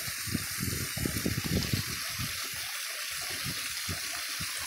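Small waterfall on a forest stream, water splashing steadily over rocks into a shallow pool.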